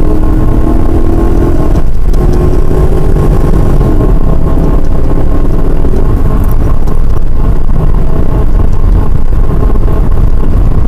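A motor vehicle running at road speed: a steady, loud engine drone with heavy road and wind noise.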